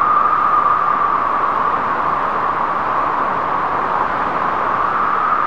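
A steady rushing noise with a narrow, whistle-like band at a middle pitch that rises a little and then sinks slightly.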